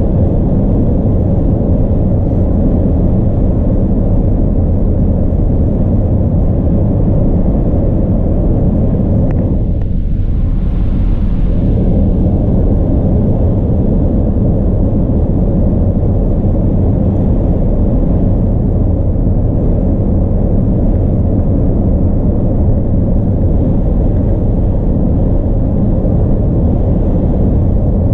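Steady low rumble of a car's road and engine noise, heard from inside the cabin while driving at highway speed. A brief hiss rises about ten seconds in.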